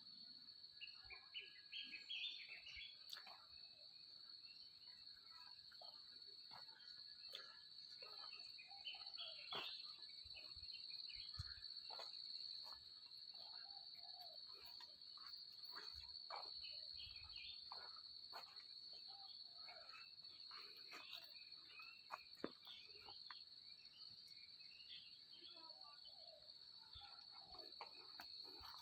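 Faint outdoor insect chorus, a steady high-pitched drone, with many short bird chirps and calls scattered through it.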